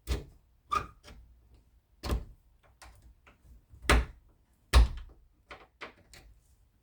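Sharp knocks and clunks on an interior door as an old doorknob's hardware is worked loose. There are about five strong hits, the two loudest past the middle, then a few lighter taps.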